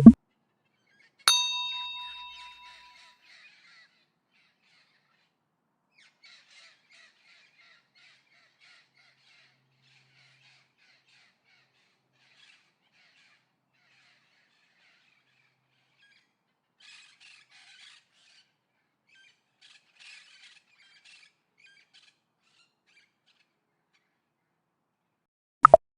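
A sharp click, then a bright metallic ding that rings and fades over about two seconds. Faint, scattered bird calls follow, and another sharp click comes near the end.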